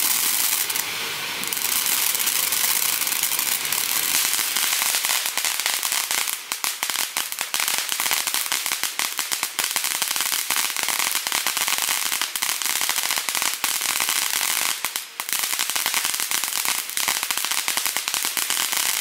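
TNT 'Broadway Show' ground fountain firework spraying sparks: a steady hiss with dense, rapid crackling that thickens from about six seconds in.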